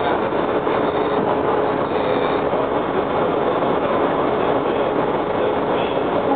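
Steady running noise of a WMATA Breda 4000-series Metrorail car, heard inside the passenger cabin, with a faint steady tone under it.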